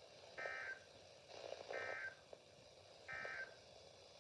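Three short, buzzy digital data bursts about 1.4 s apart from a weather radio's speaker: the EAS/SAME end-of-message code, signalling that the warning broadcast is over.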